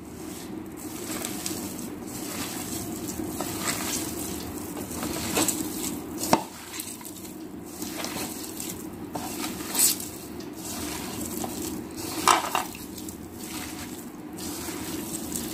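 Hand squishing and kneading a moist minced-chicken and onion momo filling in a bowl, a steady wet mashing over a low hum, with a few sharp clicks against the bowl.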